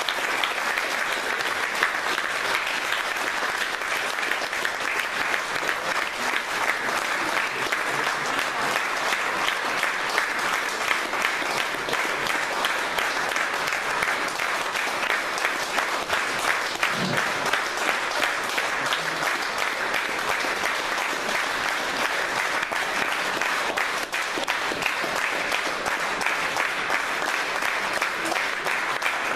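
Sustained applause from a room full of people, steady and unbroken, with a few voices mixed in.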